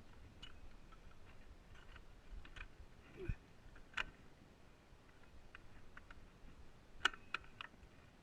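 Scattered light clicks and taps, with a cluster of several quick clicks about seven seconds in and a brief falling squeak a little past three seconds.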